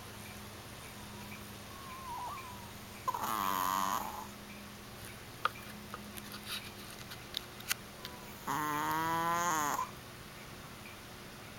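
Chihuahua snoring: two long, high-pitched snores, each about a second long and some five seconds apart, with a few faint clicks in between.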